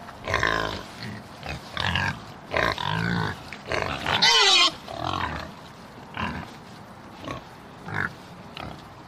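A pig grunting and squealing in a quick series of calls, with one loud squeal falling in pitch about four seconds in, then fainter, sparser grunts.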